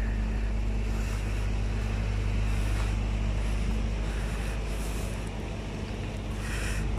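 Steady low rumble and hiss of outdoor background noise, with a constant low hum and a few brief soft rustles or scuffs every second or two.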